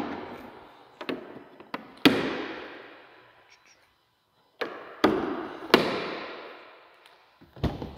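Several sharp bangs from a pickup truck's sheet-metal body being handled, likely the hood and body panels. The loudest come about two seconds in and again twice near the five- to six-second mark, each echoing off hard walls.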